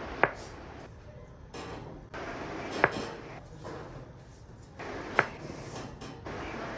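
Three sharp cracks, about two and a half seconds apart: joints popping during chiropractic adjustments.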